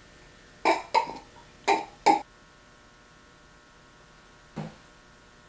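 A man coughing four times, in two quick pairs, followed near the end by a faint short sound.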